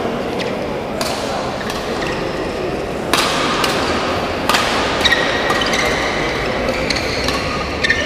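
Badminton rackets striking a shuttlecock in a rally: a string of sharp hits about every second or so, ringing in a large hall.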